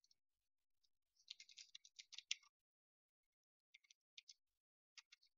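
Faint quick clicks, a rapid run of them about a second in, then a few scattered single clicks, in a quiet room.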